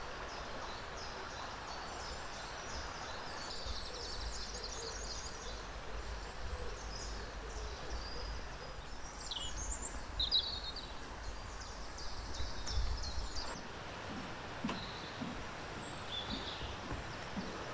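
Wild birds calling outdoors: many short, high chirps and whistled glides scattered throughout, over a steady background hiss and low wind rumble.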